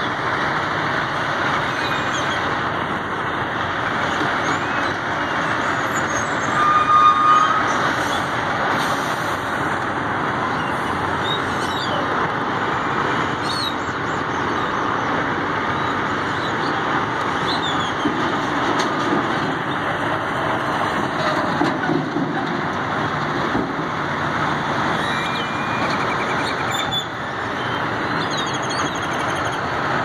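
A big flock of birds chirping and chattering together in a tree, a dense unbroken din, over the steady rumble of idling trucks. A brief louder, higher sound stands out about seven seconds in.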